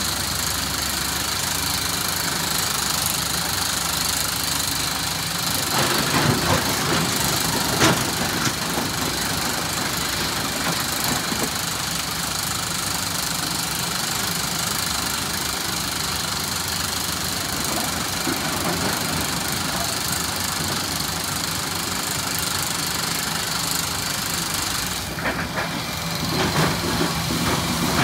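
SANY SY365H PRO excavator's diesel engine running steadily while it works, with a few sharp knocks about six and eight seconds in.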